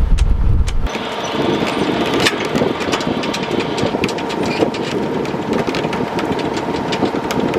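A sailboat's inboard engine running steadily with a faint hum. Before it, for about the first second, wind rumbles on the microphone.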